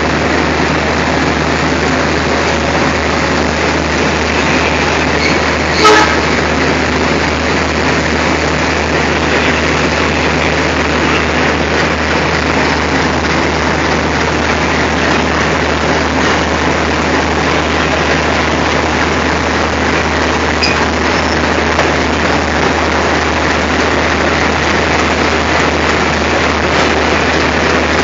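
Diesel locomotive engine running steadily with a low drone as the locomotive eases up to a coach for coupling. A single sharp clank comes about six seconds in.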